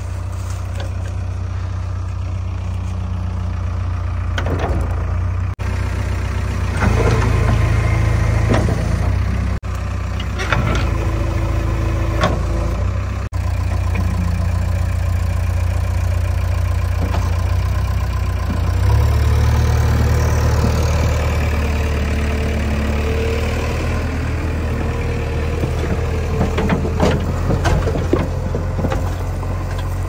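JCB 3DX backhoe loader's diesel engine running, growing louder and heavier at times as the hydraulic arm and buckets are worked, with a few short clanks.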